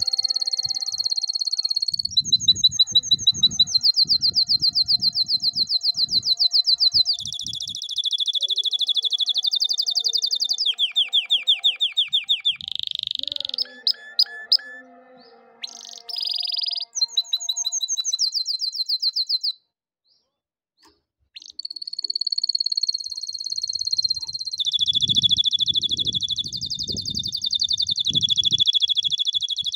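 Domestic canary singing a long song of rapid trills, one run of repeated notes after another at changing speeds and pitches. It breaks off for about two seconds roughly two-thirds through, then starts again.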